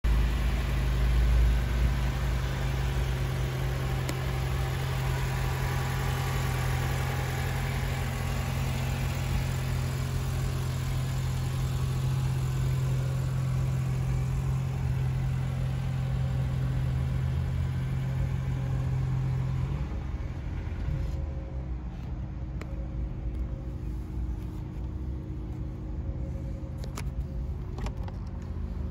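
A vehicle engine idling with a steady low hum that cuts out about twenty seconds in, leaving a low rumble and a few faint clicks near the end.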